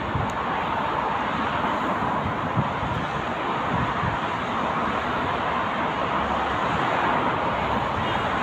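Airbus A320 jet engines at takeoff thrust as the airliner lifts off and climbs away, a steady jet rumble and hiss that grows slightly louder near the end.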